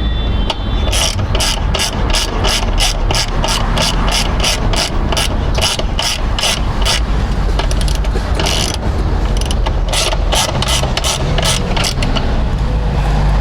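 Hand ratchet wrench clicking in quick, even strokes, about three or four clicks a second, as bolts are backed out; the clicking pauses and comes back twice in shorter runs near the end.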